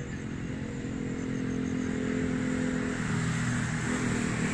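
A motor engine running steadily, its note shifting about three seconds in.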